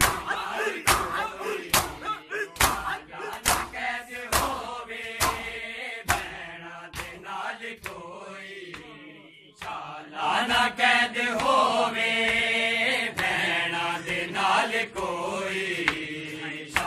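Matam: a crowd of men beating their bare chests with open hands in a steady rhythm, a sharp slap a little more than once a second, over men chanting a Punjabi noha (mourning lament). About halfway through, the chanting grows loud and the slaps become fainter and sparser.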